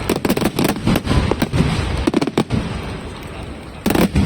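Fireworks bursting overhead in quick succession, a dense run of bangs and crackling, easing off briefly about three seconds in before a loud bang near the end.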